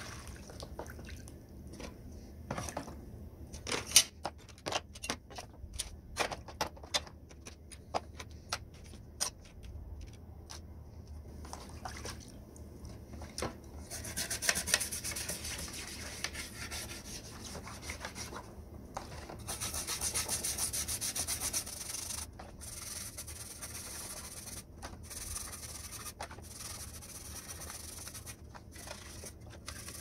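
Sheet-metal parts of a rusty tin coffee grinder being handled and rubbed in a tray of water: a run of light clicks and knocks in the first half, then longer stretches of rubbing hiss.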